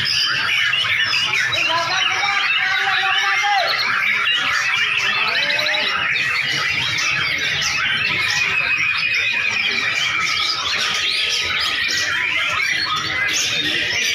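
Many white-rumped shamas (murai batu) singing at once: a dense, continuous chorus of overlapping whistles, warbles and chattering phrases.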